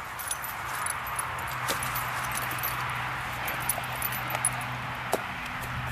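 Light metallic jingling and clicking from a Great Dane's metal-studded collar as the dog moves about and picks up its ball, over a steady hiss and a low hum.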